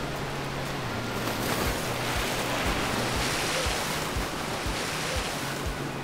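Ocean surf breaking and rushing in a steady wash of whitewater, swelling about a second and a half in. Soft background music with a low beat of about two pulses a second plays underneath.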